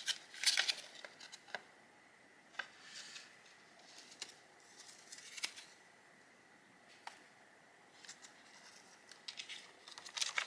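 Scattered light clicks and short rustles of paper and plastic as the contents of a phone screen replacement kit, including a small paper guide, are handled.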